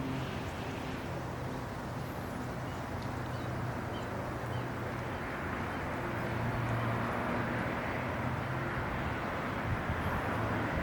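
Steady outdoor background hum with a low, engine-like drone that swells slightly about six seconds in, and a few faint high chirps.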